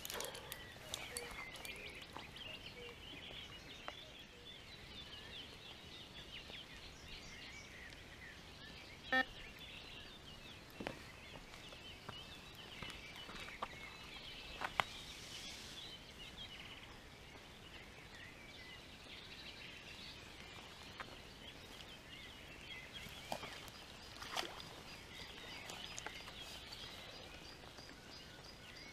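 Faint outdoor birdsong, many small birds chirping and singing together, with a few short sharp clicks and knocks, the loudest about nine and fifteen seconds in.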